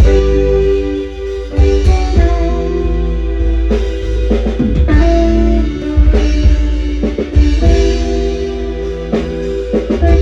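Live band playing an instrumental passage with no vocals: drum kit with snare hits, heavy bass, guitar and held chords, loud.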